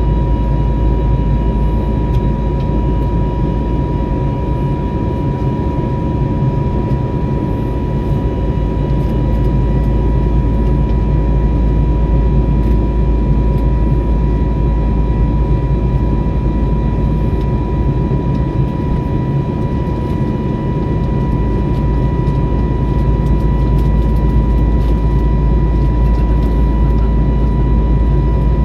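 Steady cabin noise of an Airbus A320neo in flight, its CFM LEAP-1A engines and airflow making a deep, even rumble with a steady high-pitched hum over it.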